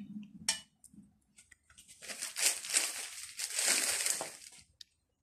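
A few light clicks, then crinkling and rustling of plastic being handled, starting about two seconds in and lasting nearly three seconds.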